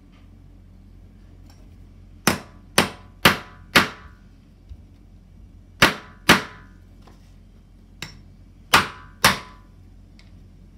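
Claw hammer striking a metal tool set over a stroller wheel's axle, driving the flattened lock washer down onto the axle. Sharp, briefly ringing blows in three quick bursts: four, then two, then two, with a couple of lighter taps between.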